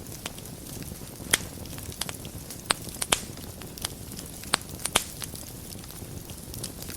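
Fire burning in a fireplace, crackling: a steady low rush with sharp, irregular pops, about five loud ones and several fainter ones.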